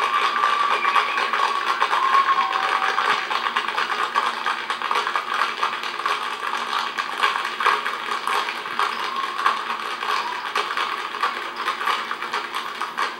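A group tap dancing: a dense, irregular clatter of tap-shoe taps over faint music, thin and without bass as TV sound picked up off the set.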